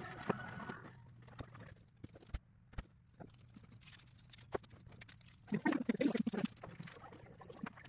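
Rapid, irregular clicking and pattering of small laser-cut wooden kit parts being handled and fitted on a table, sped up many times over, with a louder jumble of clatter about six seconds in.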